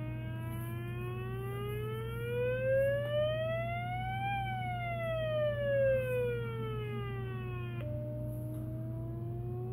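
Small speaker, driven by a homemade two-stage transistor amplifier, playing a swept test tone. A triangle-wave tone rises from about 300 Hz to 800 Hz and falls back down, swelling louder twice as it passes the middle of the sweep. Near the end it switches to a smoother sine tone that starts rising again. A steady low hum runs underneath.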